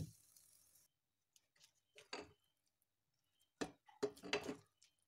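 A wooden spatula knocks and scrapes a few times against a pan while thick green pea halwa is scooped out, with quiet gaps between the strokes and most of them near the end. A faint sizzle from the pan dies away within the first second, the gas having just been turned off.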